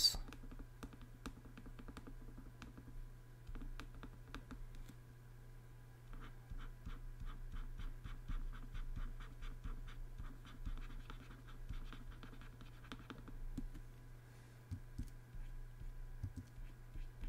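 Pen stylus tapping and scratching on a graphics tablet in short dabbing strokes, busiest in the middle, over a steady low hum.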